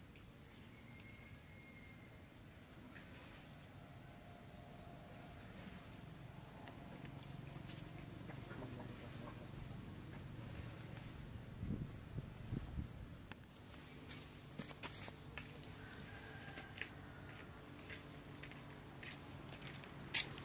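Steady high-pitched insect drone, with a few faint calls and scattered soft knocks.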